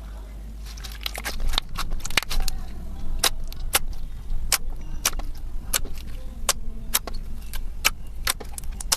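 Slime being squeezed and poked by hand, giving sharp, irregular clicks and pops several times a second.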